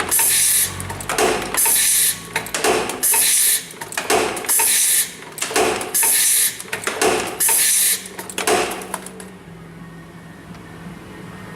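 CNC-30T1 multi-slide forming machine running through its cycle: a loud burst of about half a second comes roughly every one and a half seconds, with lighter clicks between. The cycling stops about nine seconds in, leaving a low steady hum.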